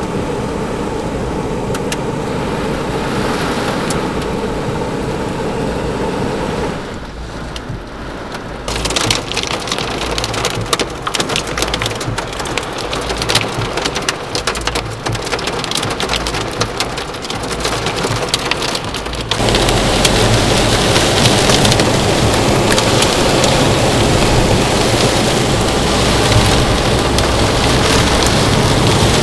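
Violent thunderstorm downpour with hail drumming on a car's roof and windshield, heard from inside the car. It begins as a steady rush, turns into a dense patter of hard drops after a short lull, and swells into a much louder, heavier hammering about two-thirds of the way in.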